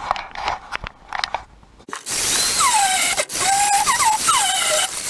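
Handling knocks and rustles, then about two seconds in an angle grinder starts grinding into the car's sheet-steel floor pan. Its whine drops in pitch each time the disc is pressed into the metal.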